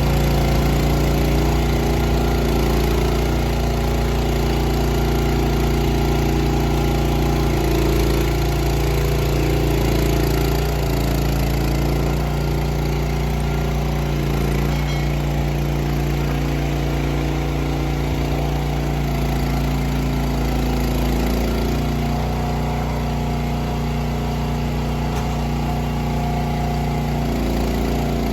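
Tractor engine running at a steady speed, with small shifts in pitch now and then.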